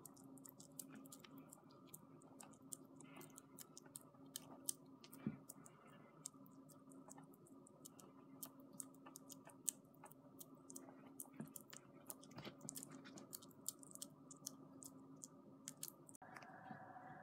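A kitten eating wet mashed food from a plate, faint rapid irregular wet clicks and smacks of lapping and chewing, over a low steady hum.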